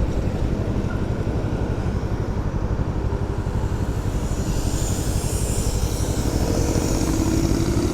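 Motorcycle engine running steadily with a low, pulsing throb. Road and wind hiss builds from about halfway through.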